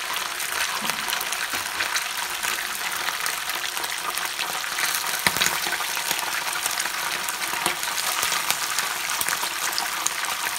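Pond loaches deep-frying in very hot fat in a pan: a steady sizzle full of crackles and pops, as more fish are laid into the oil. One louder pop comes about five seconds in.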